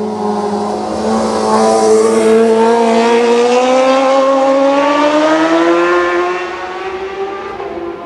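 Racing motorcycle passing at race speed, its engine at high revs and rising steadily in pitch as it accelerates. It swells in about the first two seconds, is loudest for a few seconds, and fades away after about six seconds.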